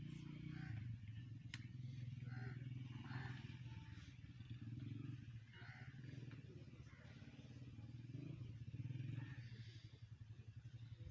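A low, steady rumbling drone with a fluttering texture, with faint short chirps above it and a single sharp click about a second and a half in.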